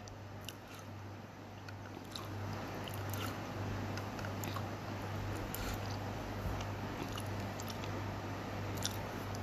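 Close-miked eating sounds: chewing and sipping soup, with scattered light clicks as a metal spoon works in a ceramic bowl, over a steady low hum.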